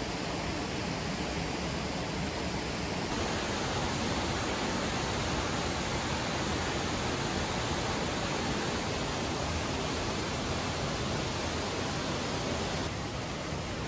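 Steady rushing of a waterfall, an even wash of falling water with no breaks; its tone shifts slightly about three seconds in and again near the end.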